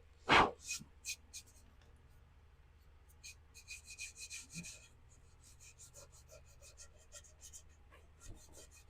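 Two loud knocks against the glazed ceramic bonsai pot, then a run of short scraping strokes over its hard surface, with more, fainter scrapes near the end.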